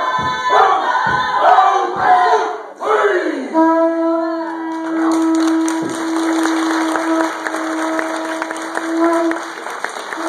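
Māori haka: performers shouting a chant in unison, breaking off about three and a half seconds in. Then a single long, steady note is held, broken briefly near the end, while the audience applauds.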